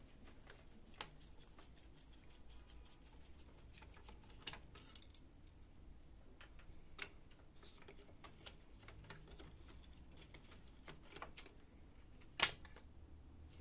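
Small, scattered clicks and taps of plastic laser-printer parts being handled and worked loose by hand, with one sharper click near the end.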